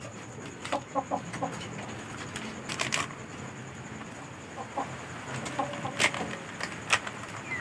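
Chickens clucking in short scattered calls, with a few sharp clicks and knocks between them.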